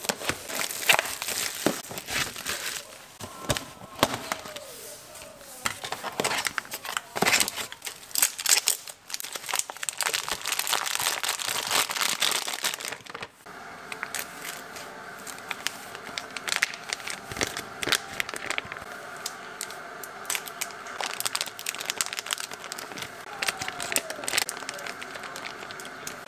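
Plastic food packaging crinkling and rustling as a self-heating hot pot kit is unwrapped, with small foil and plastic sachets torn open and squeezed out. The handling is busiest in the first half; a faint steady hum lies under the later part.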